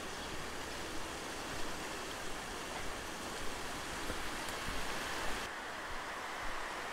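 Steady rain falling, an even hiss. About five and a half seconds in the sound changes abruptly and the high part of the hiss drops away, leaving a duller rush.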